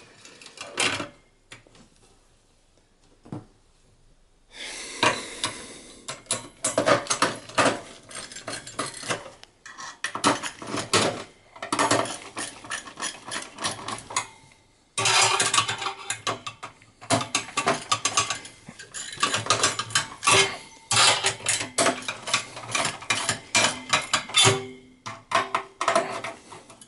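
Clicking, scraping and rattling of a desktop PC's CPU heatsink being handled and fitted back over the processor inside the case. It goes quiet briefly about two seconds in, then runs on as dense, irregular clatter.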